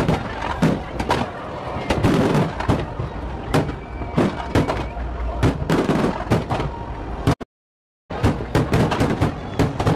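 Fireworks going off: a dense, irregular run of bangs and crackles from bursting aerial shells, several a second. The sound cuts out completely for under a second, about seven seconds in, then the bangs resume.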